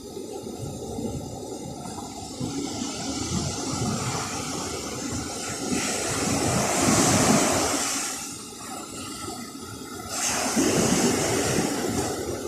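Ocean waves washing onto the shore, a steady rush of water that surges twice, about six seconds in and again about ten seconds in.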